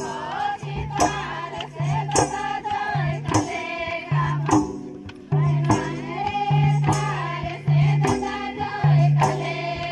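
Group folk singing in chorus, accompanied by a hand-played barrel drum keeping a steady beat for a circle dance.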